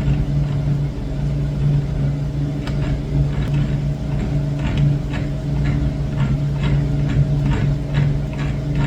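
A shop machine motor running with a steady hum while a small broken bolt is being worked out of its hole. Light ticks come about two to three a second from about three seconds in.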